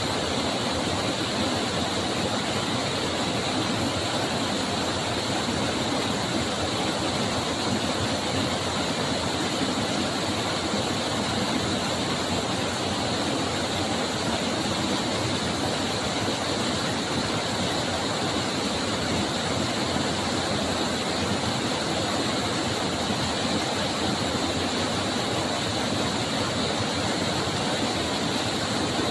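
Water rushing steadily, an even unbroken noise that does not change.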